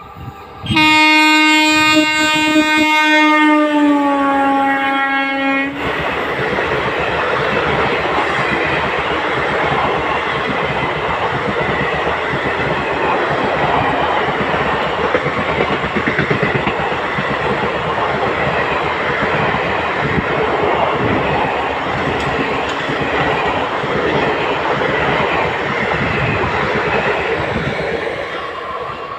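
Indian Railways electric locomotive sounding one long horn blast of about five seconds as the express approaches at speed, the pitch dropping as the locomotive passes. Then the coaches run by with steady wheel-on-rail rumble and clickety-clack, fading near the end.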